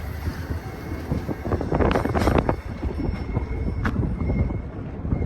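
Intermodal freight train's cars rolling past close by: a steady low rumble with continual wheel clatter and clicks over the rail joints.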